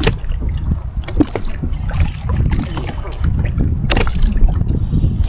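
Water lapping and sloshing around a fishing kayak, over a steady low rumble, with several sharp knocks, the loudest about four seconds in.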